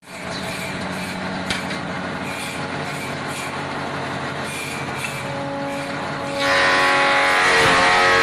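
Hammer-handle shaping machine running: the electric motor and belt-driven cutter head spin steadily, then about six seconds in the sound jumps much louder and higher as the cutter bites into the wooden handle blank.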